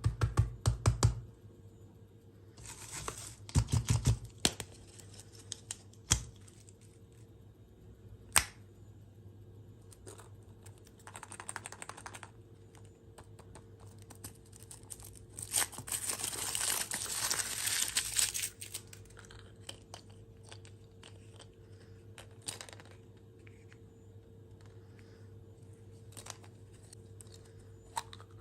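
Dessert or candy packaging being torn open and crinkled in short spells, the longest about halfway through, with scattered taps and clicks between.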